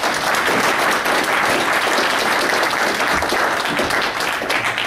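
Audience applauding, a dense run of hand claps that holds steady and then tapers off near the end.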